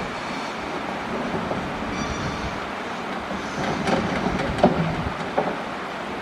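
Caterpillar excavator working: a steady engine and hydraulic noise, with sharp clanks and knocks of steel and rock starting about three and a half seconds in as the bucket digs into coral rock.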